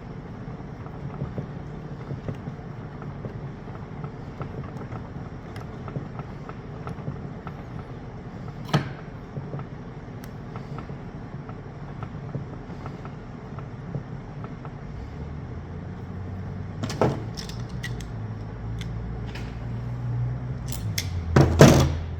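Faint metal ticks of a 1/4 inch Allen key turning a Teflon-taped set screw into a hydraulic cable cutter head, with a sharp knock about nine seconds in, another around seventeen seconds, and a louder clatter of metal parts near the end, over a steady low hum.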